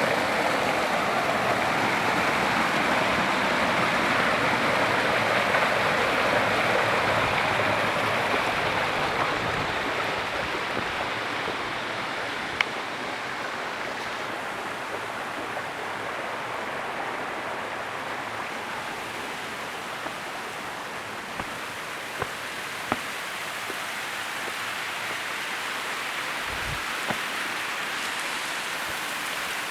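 Gadelsha waterfall rushing in a steady roar of falling water, a little quieter from about ten seconds in. A few brief sharp clicks and a short low thump come in the second half.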